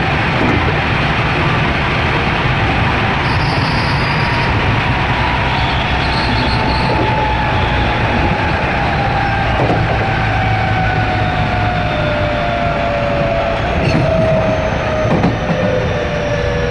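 Onboard running sound of a JR West 207 series EMU with Toshiba GTO-VVVF traction equipment: a steady rumble of wheels on rail, with motor and inverter whine tones sliding slowly down in pitch as the train slows, and a few short knocks. This car is known for an abnormal, unusual-sounding inverter.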